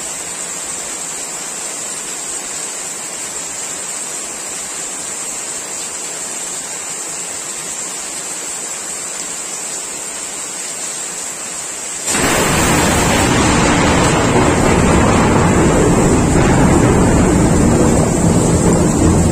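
Heavy rain falling steadily on trees and foliage. About twelve seconds in, a sudden close lightning strike gives a sharp crack of thunder that carries on as a loud, deep rumble.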